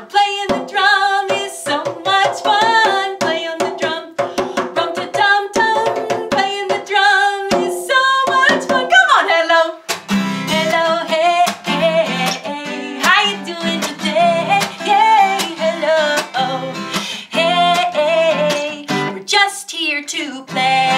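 A djembe hand drum slapped in a quick rhythm under a woman's singing voice; about halfway through, an acoustic guitar takes over, strummed in chords as she keeps singing.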